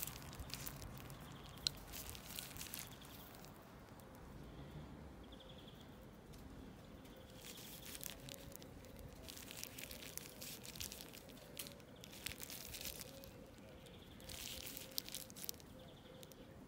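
Black nitrile glove crinkling and rustling in bursts every few seconds as a gloved hand handles and turns a folding knife, with one sharp click about a second and a half in.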